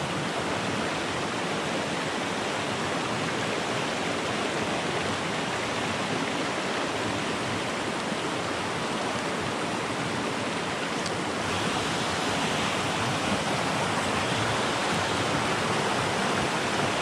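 Shallow, rocky forest stream rushing over stones in a riffle: a steady wash of running water, a little louder from a little past halfway.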